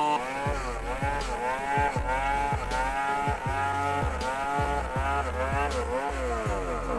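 Electronic background music with a steady kick-drum beat about twice a second over a held bass line, and a pitched tone that keeps sliding up and down.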